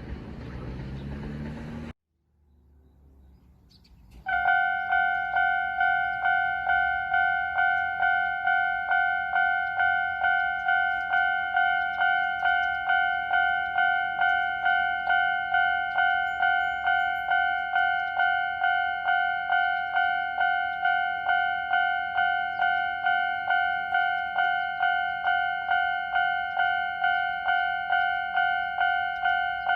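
A train runs past briefly at the start, then after a short gap an old-style Japanese railway level-crossing alarm starts about four seconds in. It rings a high-pitched repeating tone, about two strikes a second.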